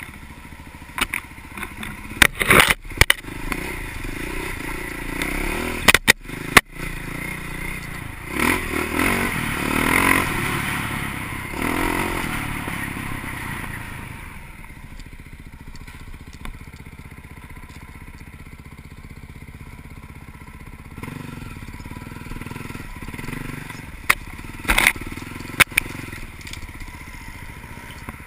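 Off-road vehicle engine running as it drives over rough ground, with sharp knocks and clatter a few times. It grows louder for a few seconds in the middle, then settles back.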